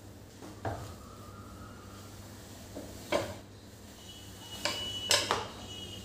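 Light kitchen clatter: about five clinks and knocks of hard objects, the loudest cluster near the end, some followed by a brief metallic or glassy ring, as a countertop is being wiped down.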